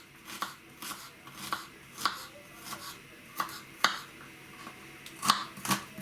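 Kitchen knife cutting on a cutting board: sharp, irregular knocks, about one or two a second, with the loudest ones past the middle and near the end.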